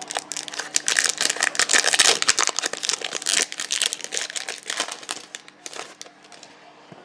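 Foil wrapper of a trading-card pack crinkling as it is handled and opened: dense crackling rustle that dies down about six seconds in.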